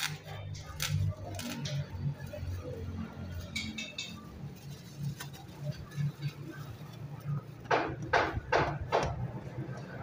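A plastic bag crinkling, with light taps and clinks, as its contents are emptied into a plastic canister. Near the end come four loud calls in quick succession.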